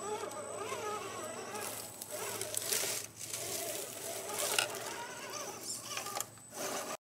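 RC4WD TF2 Marlin scale crawler's electric motor and gearing whining as it crawls up a rock, the pitch rising and falling with the throttle.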